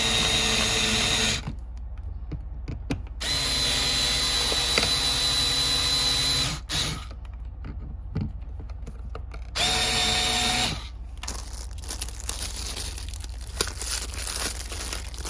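Cordless drill/driver running in three short bursts, the longest about three seconds, driving the outlet's mounting screws into the electrical box, with quiet handling between the bursts.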